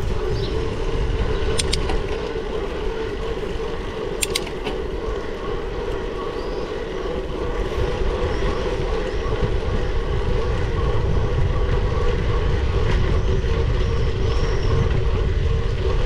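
Wind buffeting an action camera's microphone with steady rolling noise from a moving bicycle, the rumble growing a little stronger in the second half. Two short sharp clicks come about two seconds in and about four seconds in.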